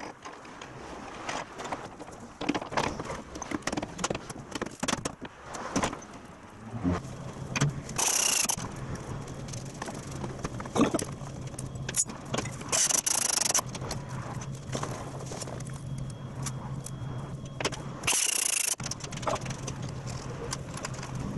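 Hand tools working on metal truck-body fittings: rapid clicks and clinks of a ratchet, screwdriver and metal hardware. A steady low hum sets in about seven seconds in, and three short bursts of hiss come along the way.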